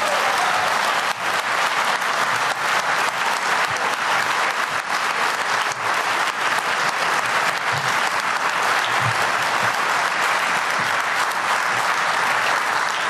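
Many people in a parliamentary chamber applauding, a dense steady clapping with no speech over it.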